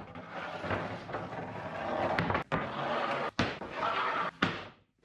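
Rough-sawn red oak boards being slid and set down on a stack on a workbench: a steady scraping rustle of wood on wood with several sharp wooden knocks as boards land, cutting off abruptly near the end.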